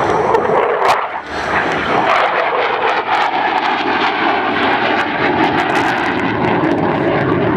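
Lockheed Martin F-16 fighter jet's single turbofan engine heard from the ground as the jet flies its display overhead: loud, continuous jet noise with a brief dip about a second in.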